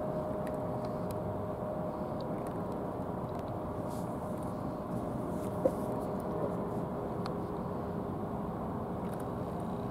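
Steady outdoor background rumble with a faint, even hum running through it, and a single sharp click about five and a half seconds in.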